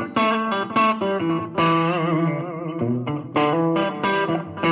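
Electric guitar played through an Audio Kitchen Little Chopper tube amp into a small cabinet with a 10-inch Celestion Greenback, set with a little drive and with the Fryette Power Station disengaged. It plays picked single notes and short phrases, with some notes held and shaken with vibrato.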